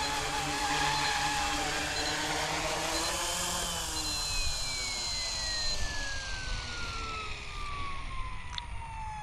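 Goosky E2 200-size RC scale helicopter's electric motor and main rotor running on the ground, then spooling down: from about three and a half seconds in, the motor whine falls steadily in pitch as the rotor slows after touchdown.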